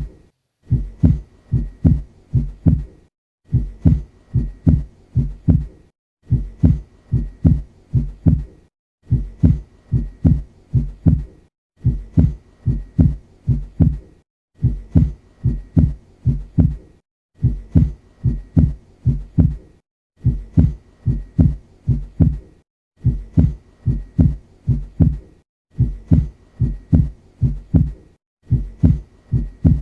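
Normal heart sounds through a stethoscope: a regular lub-dub, each beat a pair of low thumps (the first and second heart sounds). A short recording of a few beats repeats with a brief silent break about every three seconds.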